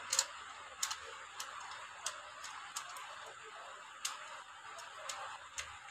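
Sharp, irregular clicks, one or two a second, from a screwdriver working a nut or screw inside a mixer grinder's plastic motor housing as it is tightened during reassembly.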